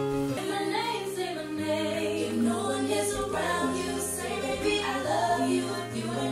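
Music with several voices singing over held low notes.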